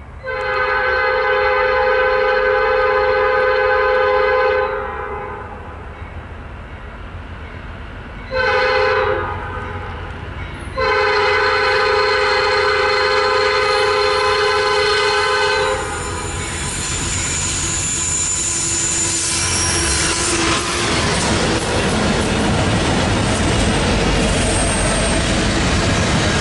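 A diesel freight locomotive's multi-note air horn sounds one long blast, a short one and another long one as the train approaches. Then the locomotives pass close by: engines and steel wheels rumble and clatter over the rail joints, with a thin high tone briefly a few seconds after the horn stops.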